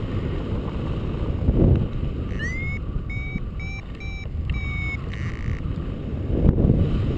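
Wind rushing over the microphone in flight, gusting twice. From about two seconds in, a paragliding variometer beeps in short, quick tones about three a second, the climb tone that signals the glider is rising in lift.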